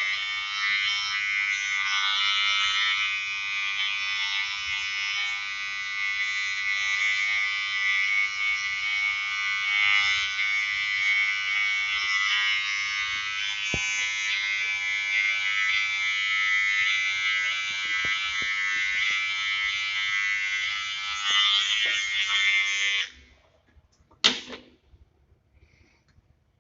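Wahl GroomsMan Pro electric trimmer buzzing steadily with a high, dense hum, then switched off about 23 seconds in, followed by a single sharp click.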